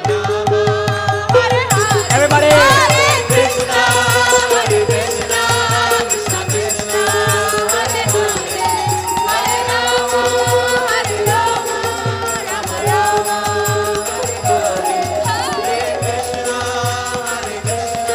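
Live kirtan: voices singing a devotional chant together over harmonium, with a steady hand-drum beat and the crowd clapping in time.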